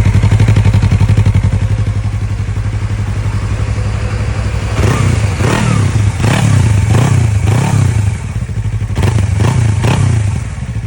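Yamaha MT-03's parallel-twin engine idling through its exhaust, then blipped on the throttle in quick, short revs: about five in a row, a brief pause, then three more.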